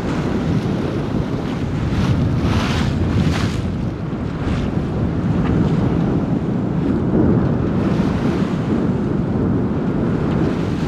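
Strong wind buffeting the microphone over the rush of water along a sailing yacht's hull as it sails upwind in fresh wind. A few splashes of spray rise above it, the biggest about two to three and a half seconds in.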